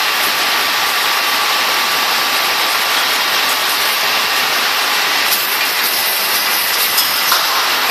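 Bag drop case packer for frozen food bags running: a loud, steady machine hiss and whir with a faint steady tone, and a few light clicks in the second half.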